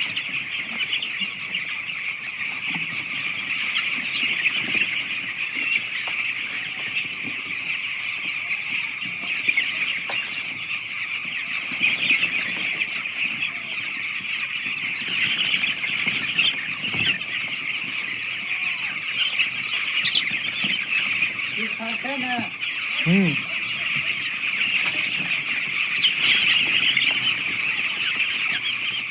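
A large flock of eight-day-old chicks peeping continuously in a dense, high-pitched chorus.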